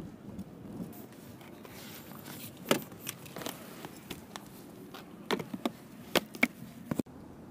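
A run of sharp clicks and knocks at irregular intervals through the middle and later part, over a low steady background rumble.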